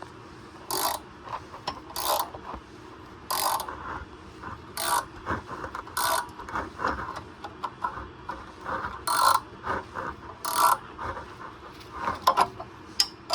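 Ratchet wrench clicking in repeated strokes a little over a second apart, turning a nut on a bolt that works as a puller to draw a seized front wheel hub out little by little.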